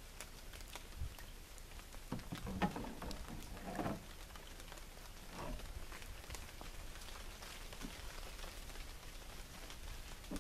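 Light rain falling, a steady hiss with many scattered drop ticks. A few louder, irregular noises come about two to four seconds in.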